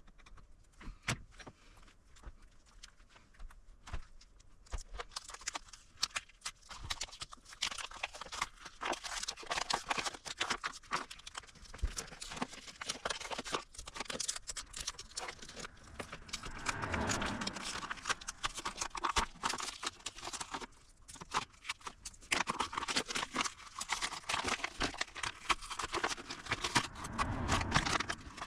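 Dense, irregular clicking and tapping of hands handling small parts and tools at a repair bench, growing busier after about five seconds, with two duller rustling knocks in the second half.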